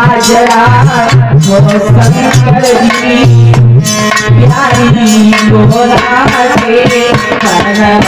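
Indian devotional folk music: an instrumental passage with a steady hand-drum beat under a wavering melody.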